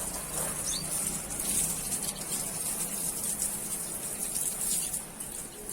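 A few faint high chirps from small cage birds, over a steady background hiss and low hum.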